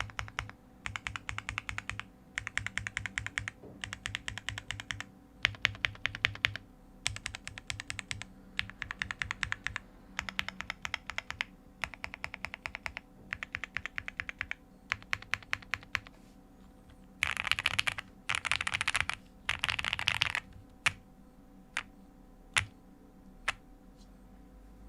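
OwLab Jelly Epoch custom mechanical keyboard with lubed Gateron Ink V2 switches, a PC plate and GMK keycaps being typed on in short runs of quick keystrokes. Later come three denser stretches of very fast keypresses, then a few single key strikes near the end.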